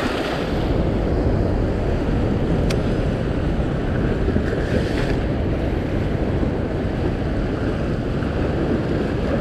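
Steady rush of sea surf and moving water, with wind rumbling on the microphone.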